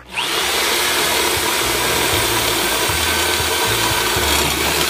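Electric hand drill boring a hole through steel angle iron: the motor whines up to speed at the start, then runs steadily as the bit cuts through the metal.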